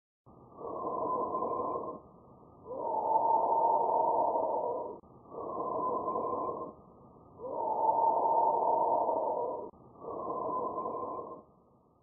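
Normal bronchial breath sounds auscultated over the trachea: two and a half breaths of airy breathing noise, each shorter inspiration followed after a brief gap by a longer, louder expiration.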